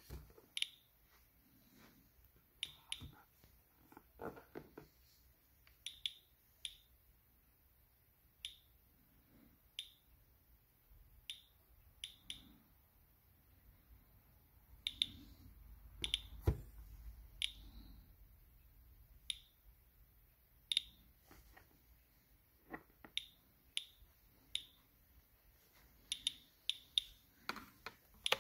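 Inspector Alert Geiger counter clicking at random intervals, about one short chirp a second, as its Geiger–Müller tube registers background radiation of around 52–62 counts per minute. The clicks come a little more often near the end.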